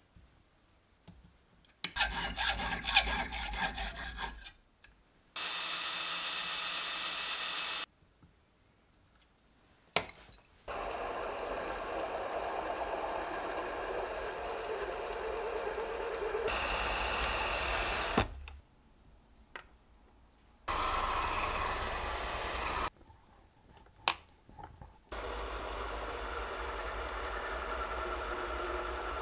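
Mini lathe's small electric motor running while a hand-held graver cuts brass stock, heard in several short takes with brief silences between them. Near the start, a few seconds of rhythmic rasping strokes on metal work.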